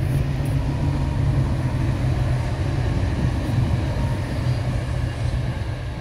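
Passenger train running past on the railway line, a steady low rumble.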